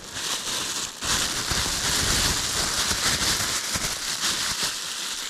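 Rushing river water, a steady hiss that gets suddenly louder about a second in.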